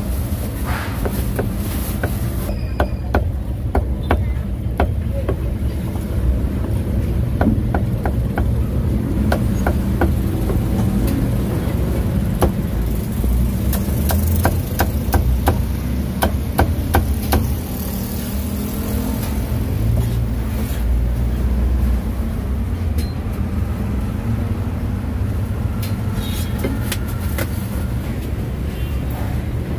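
Heavy cleaver chopping cooked pork on a thick wooden chopping block: runs of sharp knocks in quick succession, most of them in the first half. Under it runs a steady low rumble of street traffic.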